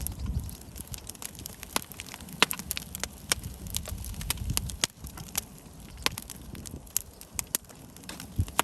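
Firewood logs burning in an open campfire, crackling with many irregular sharp pops and snaps over a low rumble that eases about five seconds in.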